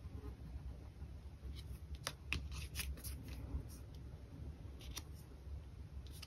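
Faint handling of paper and cardstock: designer-paper pieces being laid on and pressed down, with a few light rustles and taps scattered through.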